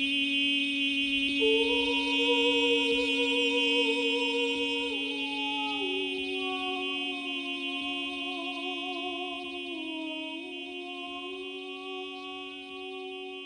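Solo experimental vocal music: a steady held drone with a second, wavering pitch sung above it. The upper pitch enters about a second and a half in and slides down in slow steps. The sound fades gradually near the end.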